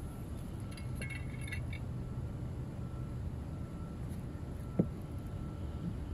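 Steady low outdoor rumble with a few faint metallic clinks about a second in and one short, sharp knock near five seconds.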